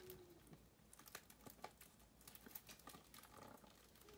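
Faint crinkling and small scattered clicks as a tool works at the plastic wrapping on a new CD, which is not yet giving way.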